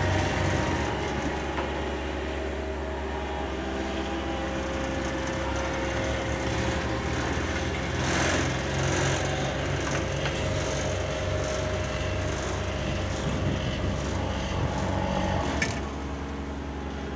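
Diesel engines of asphalt-paving machinery, small tandem rollers and a wheel loader, running steadily. A brief rush of noise comes about eight seconds in and a sharp click near the end.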